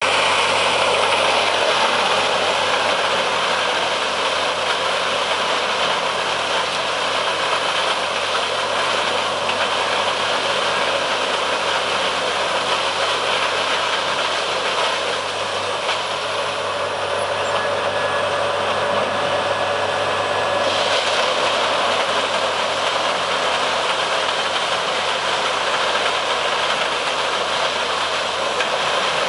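Morbark 30RXL chipper running under load, its engine and chipping head making a loud, steady din as logs are fed in and chipped for biomass.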